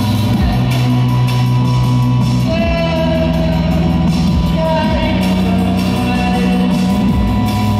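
Live rock song: a woman singing long, sliding notes over electric guitar and held bass notes.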